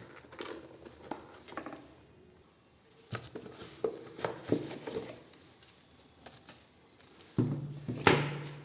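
Small hard objects being handled: irregular clicks, taps and light knocks, with the loudest click near the end over a brief low hum.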